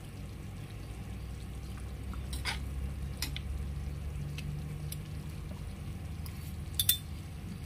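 Thick rendang gravy simmering and bubbling in a pan, with a few light clicks of a metal spoon against the pan, the sharpest near the end.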